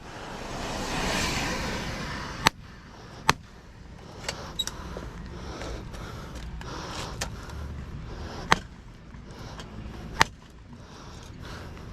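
A vehicle passes, swelling and fading over the first two seconds or so, then a handful of sharp knocks a second or more apart as an electric motor is worked apart for its copper windings.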